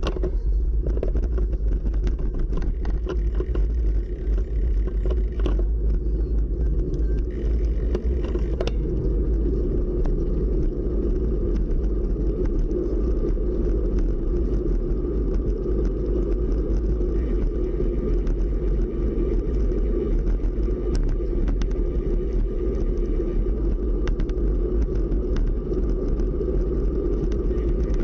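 Wind rumbling on the microphone of a bicycle-mounted camera while riding, with tyre noise on pavement. A scatter of light clicks and knocks in the first several seconds as the bike rolls over rough surface.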